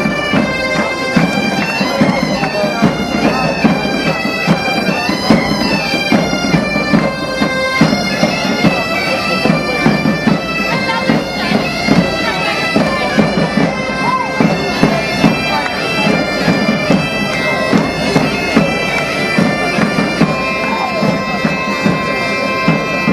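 A large band of gaitas-de-foles (Iberian bagpipes) playing a tune together over their steady drones, with side drums and a bass drum keeping the beat. Near the end the pipes settle on long held notes.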